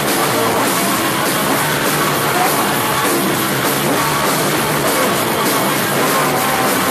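Live punk rock band playing loudly: two electric guitars and a drum kit, with a man singing into the microphone.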